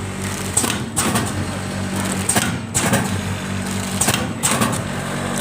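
Automatic powder sachet packing machine running with a steady motor hum, broken by a short hissing clatter about every 1.7 seconds as it works through its packing cycle, three times over.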